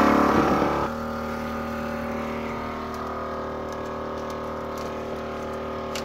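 A motor vehicle's engine idling steadily, dropping in level about a second in, with a few faint light clicks later on.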